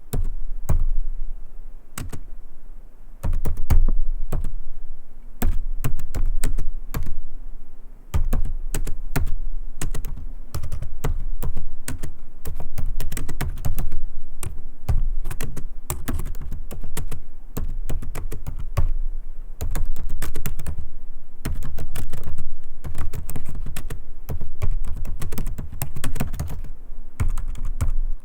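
Typing on a laptop keyboard: rapid, irregular key clicks in runs broken by brief pauses.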